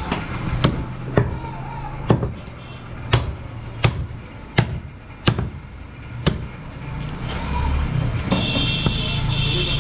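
Heavy butcher's cleaver chopping goat leg meat and bone on a wooden chopping block: about nine sharp blows, roughly one every half to one second, stopping a little after six seconds.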